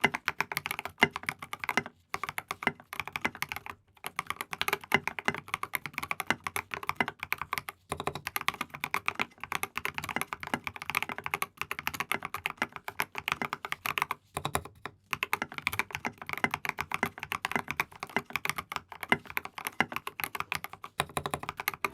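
Typing on a KBD67 MKII mechanical keyboard with Alpaca v2 linear switches and SA-profile keycaps: a fast, steady stream of keystrokes with a few short pauses.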